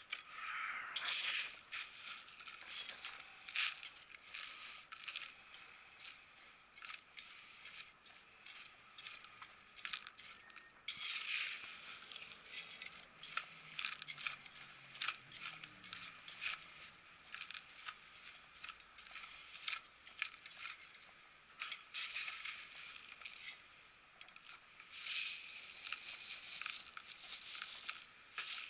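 A metal hand trowel scraping and stirring gritty potting soil in a plastic tray, a rattle of many small scrapes and clicks. Near the end, masato (decomposed-granite grit) is poured from a plastic basket and rattles into the mix.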